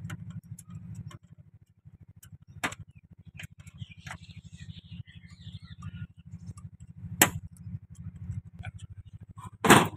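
Small spanner clicking and clinking on the bolts of a Massey Ferguson 1035 hydraulic pump housing as they are tightened by hand, with a few louder metallic knocks, the loudest near the end, over a steady low hum.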